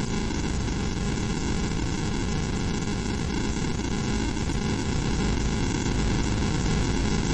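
Harsh, steady static noise with a hum underneath, unchanging throughout, of the kind used as a distorted-tape effect in analog horror.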